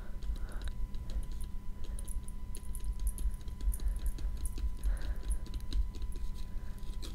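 Close-miked ASMR clicks and taps: many quick, light clicks scattered irregularly. They sit over a steady low electrical hum and a thin constant whine, noise from a failing microphone.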